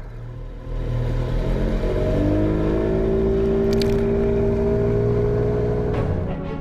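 Motor vehicle engine, most likely an added sound effect, running up from a steady hum. Its pitch rises slowly, like it is accelerating away, then it fades out near the end.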